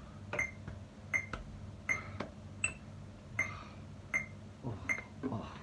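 Metronome ticking steadily with short, high beeps, about four every three seconds.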